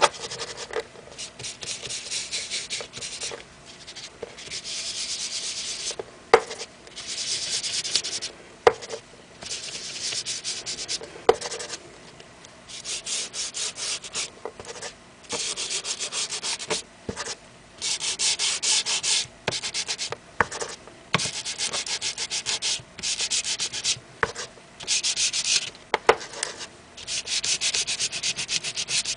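A foam ink blending tool is scrubbed against the edges of a paper journal page to apply black ink. The scratchy rubbing comes in repeated runs of a second or two with short pauses between them, and a few light taps in between.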